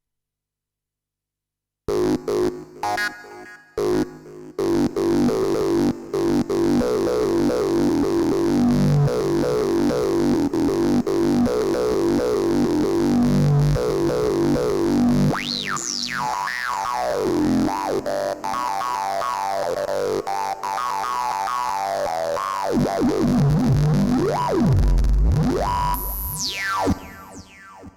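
Roland JD-990 synthesizer playing the "Highest State" patch: a few short notes about two seconds in, then full held chords, with tones sweeping up and down in pitch in the second half.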